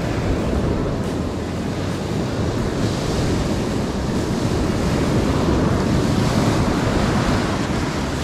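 Ocean surf breaking and washing on the shore, a steady wash of noise, with wind on the microphone.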